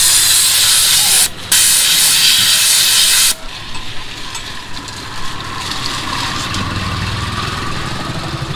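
Compressed-air blow gun hissing in two loud blasts, split by a short break, as it cleans a motorcycle oil filter, then a much quieter hiss.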